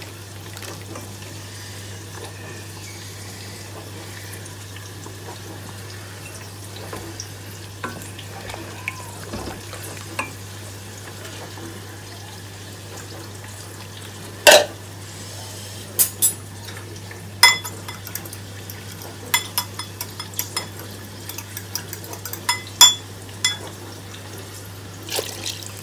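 Wooden spatula stirring simmering nihari gravy in a stainless steel pot as a flour-and-water slurry is stirred in to thicken it, over a steady low hum. From about halfway through come a series of sharp knocks of the spatula against the pot, some with a short metallic ring.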